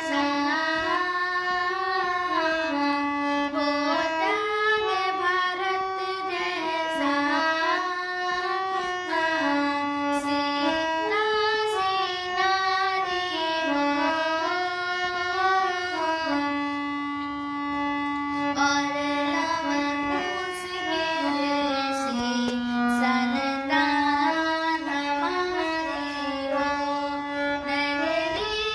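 Devotional bhajan music: a single melody line moving in steps between long, steady held notes.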